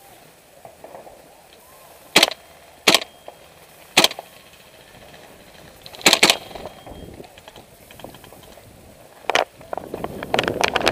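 Airsoft guns firing: single sharp cracks a second or so apart, a quick pair about six seconds in, then a rapid string of shots starting near the end.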